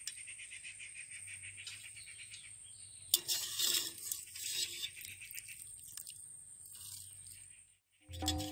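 A wire spider strainer dipped into a metal pot of water and par-boiled rice, splashing and scraping against the pot for about a second, a few seconds in, with softer scrapes after; faint insect chirring underneath. Near the end the sound cuts out and music starts.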